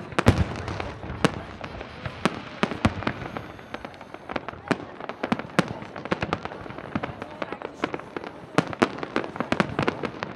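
Fireworks display: aerial shells bursting in quick irregular succession, several sharp bangs and cracks a second over a continuous crackle. A heavier boom comes just after the start.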